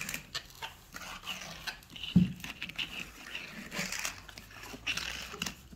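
Small plastic toy cars pushed and rolled across a hardwood floor, clicking and knocking against the boards and each other, with one louder thump about two seconds in.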